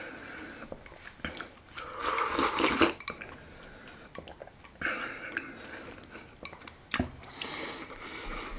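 Chopsticks clicking and scraping against a porcelain rice bowl while rice soaked in miso soup is shovelled in and slurped, in a few short noisy bursts. A sharp knock about seven seconds in as the bowl is set down on the table.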